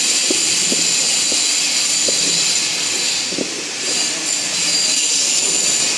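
Stainless steel colloid mill (peanut butter grinder) running, its electric motor and grinding rotor giving a loud, steady high-pitched whine over a hiss.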